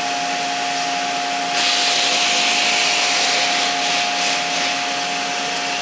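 Control-panel enclosure cooling fan running, switched on by turning its thermostat down: a steady hum under a rushing-air hiss. The hiss grows louder from about a second and a half in until about five seconds in.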